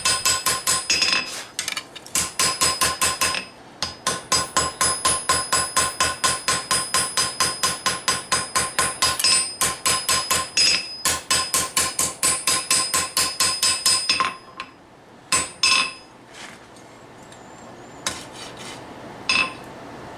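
Flat-faced hand hammer forging hot steel on an anvil, drawing out a knife tang. The blows are fast and steady, about four a second, each with a high anvil ring. There are short breaks early on; the hammering stops about two-thirds of the way through, and a few single blows follow.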